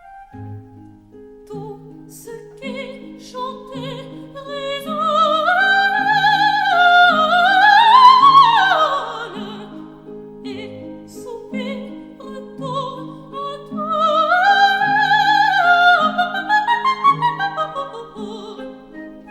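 Operatic soprano singing with strong vibrato over a piano accompaniment, in two phrases that each climb to a loud high note and fall away.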